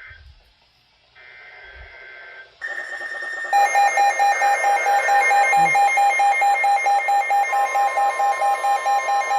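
Emergency alert attention tones. A steady high beep comes on about two and a half seconds in, and about a second later a loud, fast-pulsing alert tone joins it, about four pulses a second. A further steady tone is added partway through, as two alerts sound at once.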